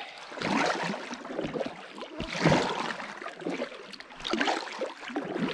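Double-bladed kayak paddle dipping and pulling through pond water in repeated strokes, with splashing and dripping. The loudest stroke comes about halfway through.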